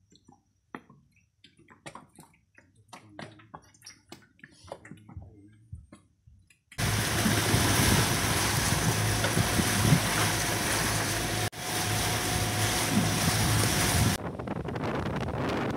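Small, faint water sounds lapping against a boat over a low hum, then about seven seconds in a sudden loud steady rush of water and wind, as of a boat under way, which drops to a quieter rush near the end.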